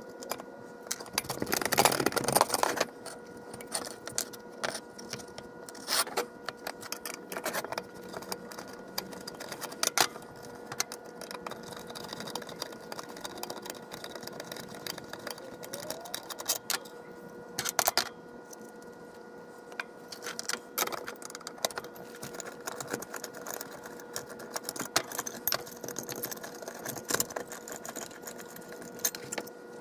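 Hand screwdriver working screws out of a vintage Autolite trumpet horn's metal diaphragm housing: scattered clicks and metal clinks, as the driver turns and small screws and hardware are handled and set down on the workbench. There is a dense run of clatter about two seconds in.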